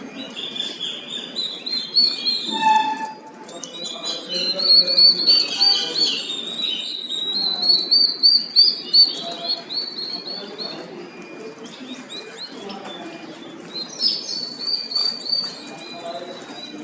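A crowd of three-day-old turkey poults peeping: many short, high-pitched calls overlapping without pause, busiest in the middle.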